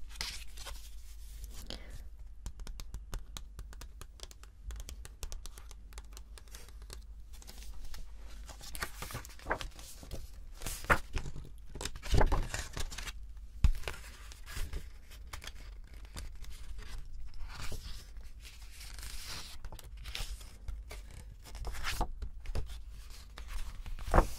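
Pages of a glossy paper booklet being opened, handled and flipped close to the microphone: crisp paper rustling, with a few sharper snaps of the pages.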